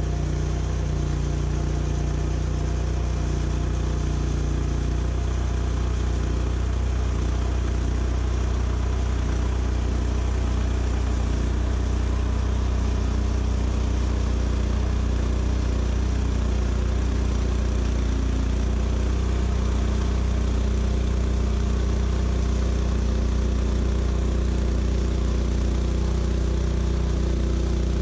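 Portable sawmill's engine running steadily under a constant drone, with an even noise over it throughout.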